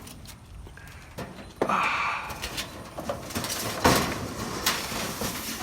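A long shelving unit scraping and knocking as it is shoved into a car's rear cargo area, with a scrape starting about a second and a half in and several sharp knocks after it.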